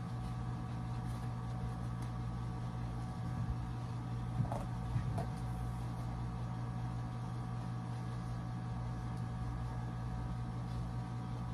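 Steady low electric motor hum with several steady tones in it. A few light knocks and rustles come between about three and five seconds in, as a pair of shoes is put on.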